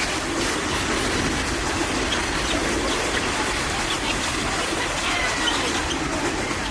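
Basketball gym during play: a steady din of crowd and room noise, with short high sneaker squeaks off the court floor scattered through it.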